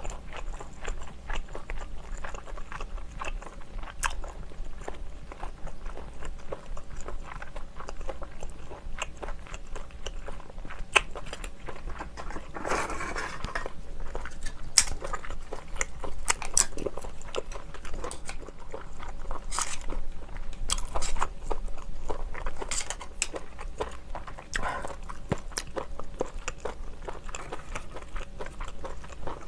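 Close-miked chewing of tough, chewy steamed shellfish meat, with scattered sharp clicks of clam shells and chopsticks being handled, and a short rustling scrape about 13 seconds in.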